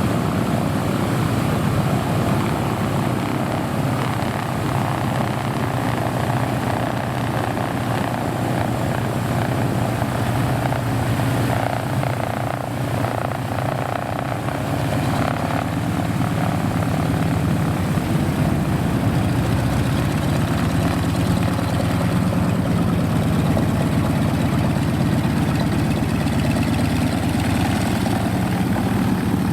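Vintage propeller aircraft's piston engine running steadily, a continuous drone whose pitch shifts slightly in the second half.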